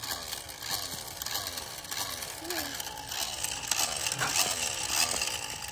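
Battery-powered toy bubble gun running with the trigger held: a continuous gritty whir and rattle of its small motor and plastic gears.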